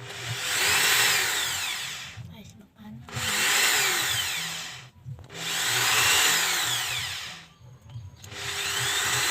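Electric drill boring into the wood of a bird cage frame in four runs of about two seconds each. The motor whine rises and then falls in each run.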